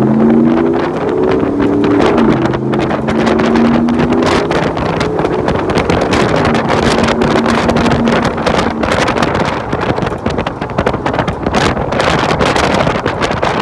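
Hemi V8 running through a Magnaflow 12288 muffler and 5-inch exhaust tips, its pitch climbing as it accelerates, dropping about two seconds in at a gear change, then climbing again before fading under the wind. Heavy wind buffets the microphone throughout and is the main sound in the second half.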